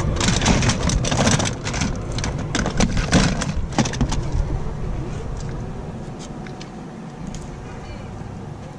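Plastic toys clattering and rattling as a hand rummages through a plastic storage bin, over a steady low rumble. The rattling thins out after about four seconds.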